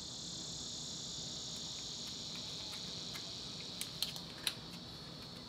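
Steady high-pitched chorus of insects, with a few sharp clicks about four seconds in.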